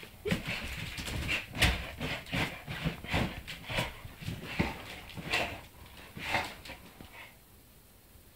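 Bull terrier mouthing a tennis ball and moving about in a wicker basket: a run of short, irregular snuffles and rustles that die away about seven seconds in.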